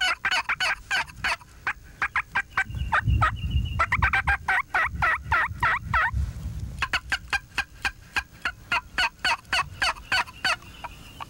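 A box call and a mouth (diaphragm) turkey call worked together: several fast runs of short, raspy turkey yelps and cutts, several notes a second, with short breaks between runs. A low rumble sounds underneath partway through.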